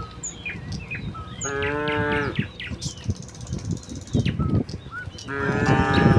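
Cattle mooing: one call about a second long, about a second and a half in, and another starting near the end. Birds chirp in between, and there are some thuds just before the second moo.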